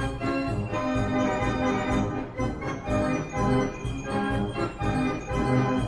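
Background music: organ chords over a steady beat.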